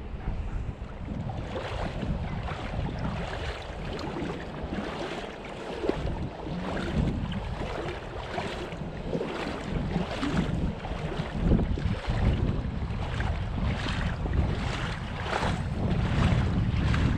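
Wading steps through a river, water sloshing about once a second, with wind rumbling on the microphone.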